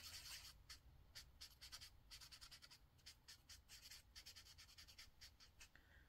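Faint scratching of a marker's broad chisel tip on paper: quick, repeated back-and-forth strokes as a flower is colored in.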